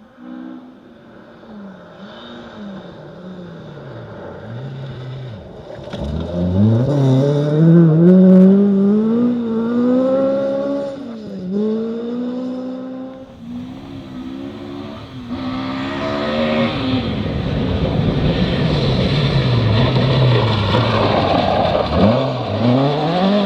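Ford Escort rally car engine revving hard up through the gears, its pitch climbing and then dropping sharply at each gear change. About two-thirds of the way in a loud rushing noise rises over the engine. Near the end the engine climbs again.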